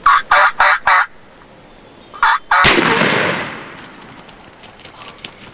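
A wild turkey gobbler gobbles, a quick rattling run of four pulses. A second short call comes about two seconds in, then a single shotgun blast that echoes and fades away.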